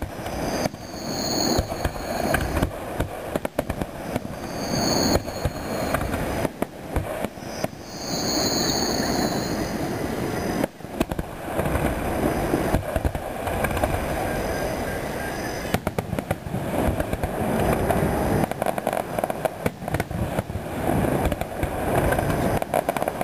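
Aerial fireworks shells bursting in a dense, unbroken string of booms and crackles.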